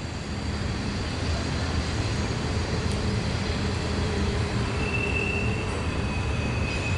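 Norfolk Southern intermodal freight train of double-stacked container cars rolling past with a steady low rumble; a faint high wheel squeal comes in about five seconds in.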